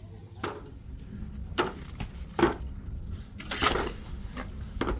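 A handful of irregular knocks and scrapes over a steady low hum, the longest and loudest about three and a half seconds in.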